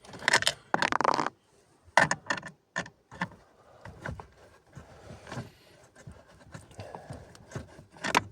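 Scraping and a scatter of short clicks and knocks of hand work on the plastic heater housing: a Torx 20 bit backing out the self-tapping screws of the heater flap actuator cover. The longest stretch of scraping comes in the first second or so.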